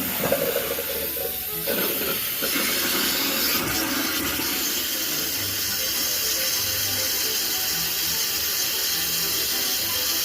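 Toilet fill valve hissing steadily as water rushes into the tank through a newly fitted supply line, growing louder about two seconds in as the shutoff valve is opened further.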